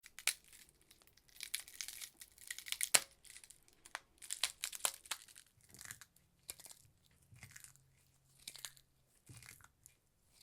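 Foley ice-cracking sound effect: a run of sharp cracks and crackles in bursts about a second apart, with the loudest snap about three seconds in and the bursts growing fainter toward the end.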